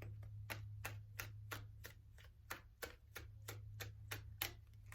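Tarot deck being shuffled by hand, the cards tapping in an even rhythm of about three taps a second, over a low steady hum.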